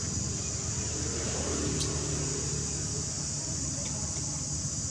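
Steady high-pitched drone of an insect chorus from the surrounding forest, with a low rumble underneath and a single faint tick about two seconds in.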